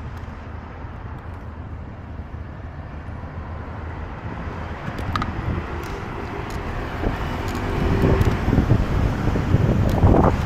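City road traffic: a steady hum of passing vehicles that grows louder about two-thirds of the way through.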